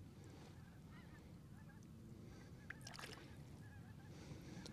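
Near silence, with geese honking faintly in the distance now and then.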